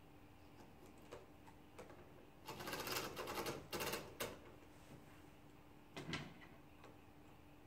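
Freespooling servo winch on an RC crawler, its drum spinning freely with a fast clicking whir as the line is pulled off by hand, in two runs of about a second and half a second a little over two seconds in. A short thump follows about six seconds in.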